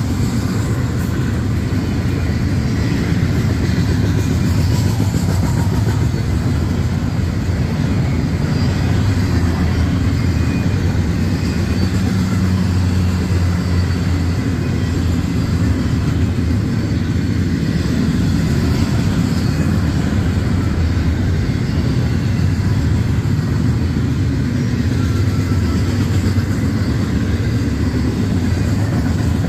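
Union Pacific double-stack intermodal container cars rolling past at close range: a steady, heavy rumble of steel wheels on rail.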